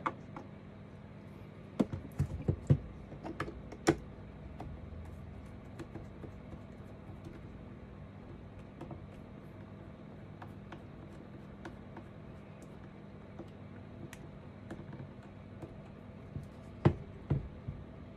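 Scattered sharp clicks and knocks of a plastic programming adapter and cable connector being handled and plugged in on a desk. They come in two clusters, the first in the opening four seconds and the second near the end, with a faint steady hum underneath.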